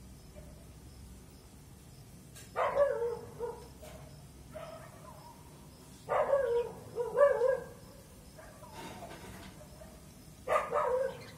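A dog barking in three short bouts of several barks each, a few seconds apart.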